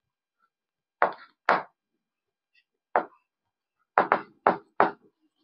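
Chalk striking and scraping on a blackboard in about seven short, sharp strokes as letters are written, with a quick run of four about four seconds in.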